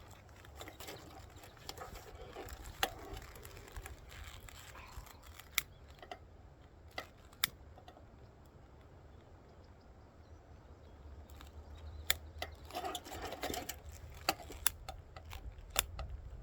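Handling noises while a beekeeping smoker is being lit: rustling and crinkling as fuel is worked into it, with scattered sharp clicks. The rustling comes at the start and again near the end, over a steady low rumble.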